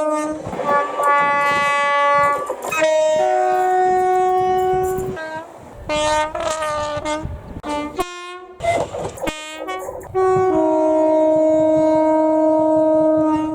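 British train horns sounding a sequence of blasts. A higher note is held for about three seconds, then a lower one, then a run of short toots, and after a break a long steady low note of about three seconds.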